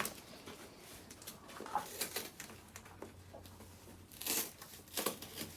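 A present's packaging being handled and torn open: irregular crinkling and tearing rustles, with the strongest bursts about four and five seconds in.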